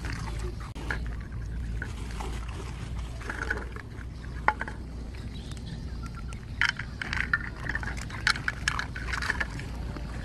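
Several dogs eating from plates, with wet chewing, lapping and smacking and clicks of teeth and plates, coming thicker in the second half, over a steady low rumble.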